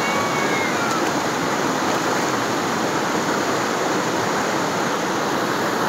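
Shallow rocky river running in white-water rapids, the water rushing steadily over boulders.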